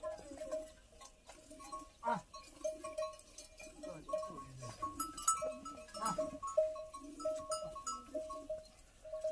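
Water buffaloes in a herd, with short notes repeating at a steady pitch and a few falling animal calls about two and six seconds in.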